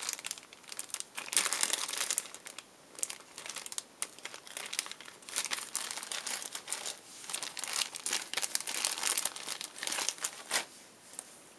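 Irregular rustling and scratching of Prismacolor pencils and blending stumps being handled and sorted through, in uneven bursts with short pauses.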